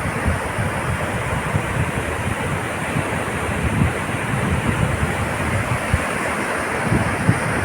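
Steady surf on a beach, with wind buffeting the microphone in low, uneven rumbles.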